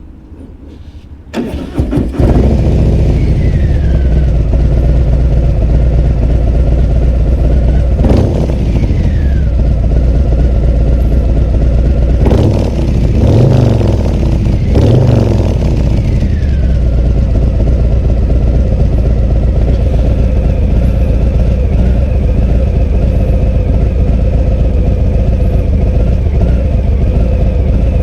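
A 2021 Harley-Davidson Breakout's Milwaukee-Eight 114 V-twin is started about a second in and settles into a loud, steady idle. The throttle is blipped briefly three times in the middle, then the engine idles on.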